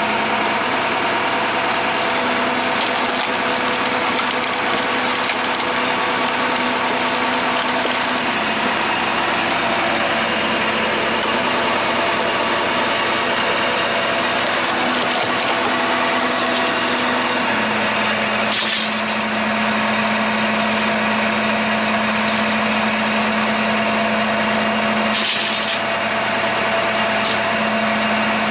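Engine of a firewood processing machine running steadily, with two brief sharp knocks in the second half.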